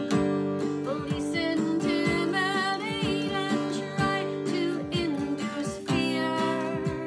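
Strummed acoustic guitar with a woman singing over it; her voice comes in about a second in, holding wavering notes.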